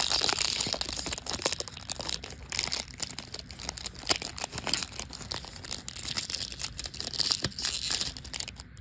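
Foil wrapper of a baseball trading card pack being torn open and crinkled by hand, a dense run of crackles that thins out and stops just before the end.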